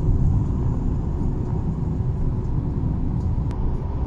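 Steady low rumble of a moving vehicle heard from inside, with one faint click about three and a half seconds in.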